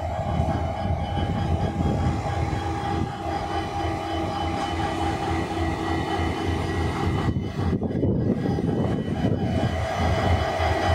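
WDP4B diesel-electric locomotive's EMD two-stroke V16 engine idling while the train stands at the platform: a steady low hum with a constant whine above it.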